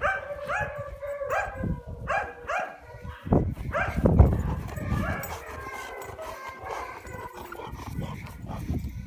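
A dog whining and yelping in short calls that rise in pitch, about two a second, fading into fainter whines later. Two dull low thumps come around the middle, the second the loudest sound.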